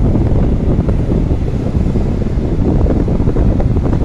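Wind buffeting the microphone, a loud, uneven low rumble.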